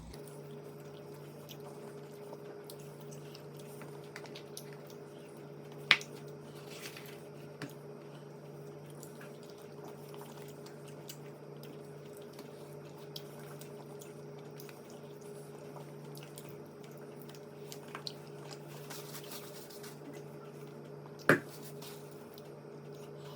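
Faint wet chewing and mouth sounds of someone eating chicken wings, over a steady electrical hum, with two sharp knocks, one about six seconds in and one near the end.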